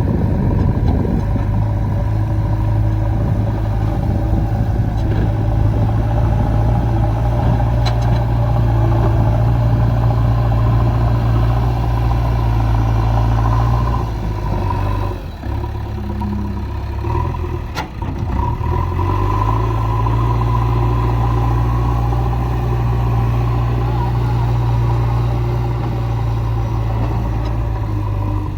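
Diesel engine of a JCB backhoe loader running under load while it levels earth, a steady low drone. About halfway through the engine note drops and wavers for a few seconds, then picks back up to the same steady pitch.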